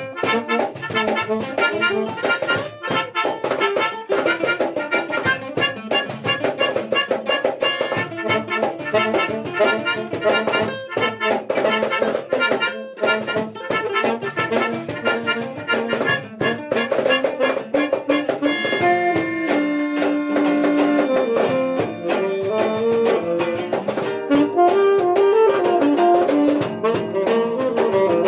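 Live instrumental music: a melodica playing a quick melody over acoustic guitar, with a saxophone. About two-thirds of the way in the melody changes to longer held notes in a lower register.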